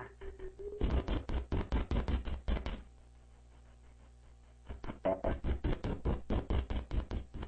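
Rapid knocking, about eight knocks a second, in two runs: one of about two seconds and one of about three seconds starting near the middle.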